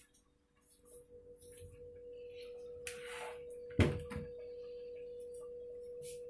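Freshly boiled water pouring from an electric kettle into a cup in a steady stream, starting about a second in, with a steady ringing tone over it. One sharp knock comes a little before halfway.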